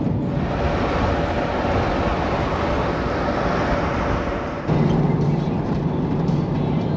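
Steady road and wind noise inside a car driving at highway speed. About two-thirds of the way through it switches suddenly to a louder, lower drone of engine and tyres.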